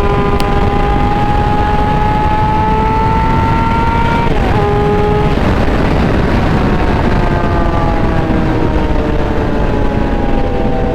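Yamaha R6 inline-four engine under way: revs climbing steadily for about four seconds, a quick upshift, then revs easing down for several seconds before rising again near the end. A steady rush of wind noise runs underneath.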